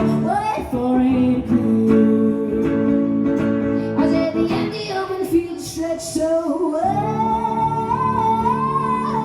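A live song: a woman singing over guitar. From about seven seconds in she holds one long wordless note.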